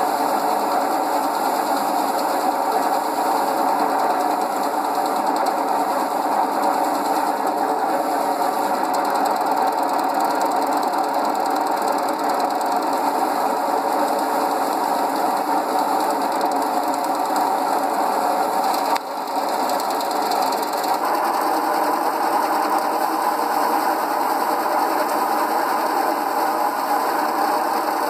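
Powered paddy threshing machine running steadily while bundles of rice sheaves are fed into it, a dense mechanical whirr with a brief dip about two-thirds of the way through.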